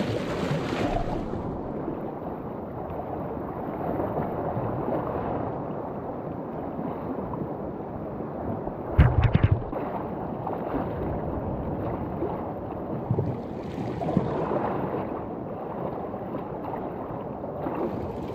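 Steady rush of moving seawater, with wind buffeting the microphone. About nine seconds in comes a short cluster of loud knocks.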